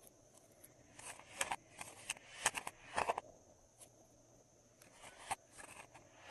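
Glossy slime being squeezed and worked by hand, giving a run of irregular wet clicks and pops, thickest about one to three seconds in.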